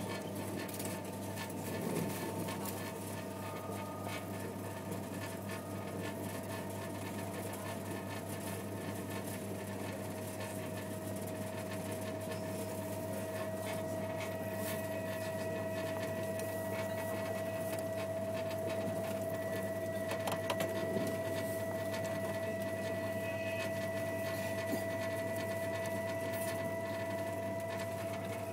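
Eurostar train running, heard inside the carriage: a steady low hum with a thin whine that climbs slightly in pitch.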